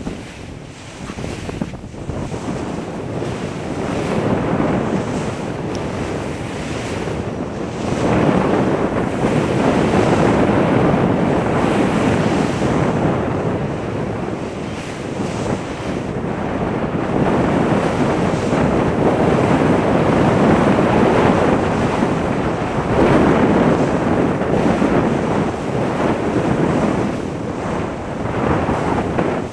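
Ocean surf breaking and washing up a sand beach, swelling and easing in long surges, with wind buffeting the microphone.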